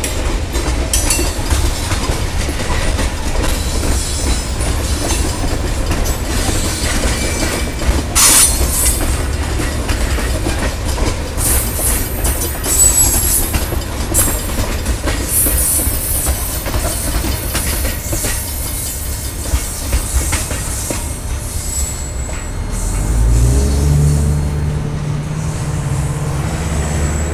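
High-side gondola cars of a freight train rolling past, wheels clicking over the rail joints with brief high flange squeals. A low steady engine hum comes in near the end as the last car goes by.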